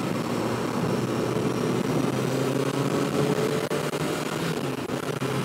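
Motorcycle engine running at a steady road speed, mixed with wind rush, picked up by a microphone inside the rider's helmet.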